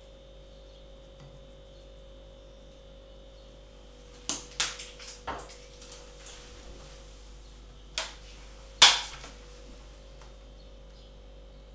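A handful of sharp clicks and knocks of kitchen containers being handled, the loudest about nine seconds in, over a faint steady hum.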